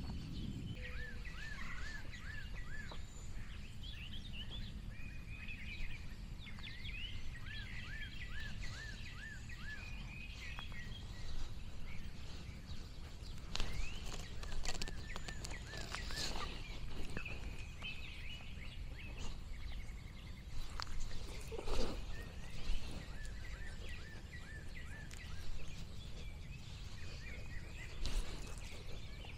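Small birds singing outdoors: runs of repeated, evenly spaced whistled notes and scattered chirps, over a steady low rumble of outdoor background noise. A few short rustles or clicks come about halfway through.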